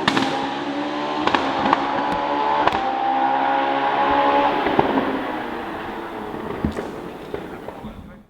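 Hillclimb race car's engine running hard as it climbs away, fading into the distance, with several sharp pops and cracks from the exhaust. The sound cuts off suddenly near the end.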